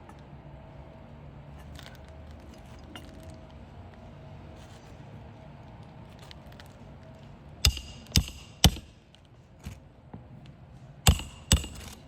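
Hammer driving roofing nails into a shingle: three sharp ringing strikes about half a second apart, then after a pause of a couple of seconds two more.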